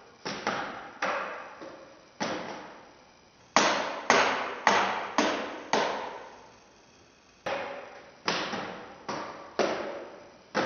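Feet stamping on a wooden pallet in a large empty hall: a series of sharp knocks in irregular groups, each echoing for most of a second.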